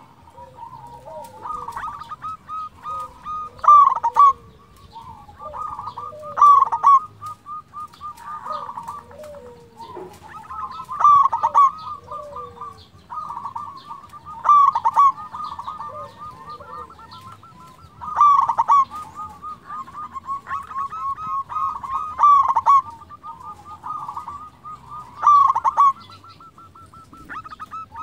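Zebra dove (perkutut) singing: about seven phrases of rapid, rolling cooing notes, repeated every three to four seconds, each with a few louder notes.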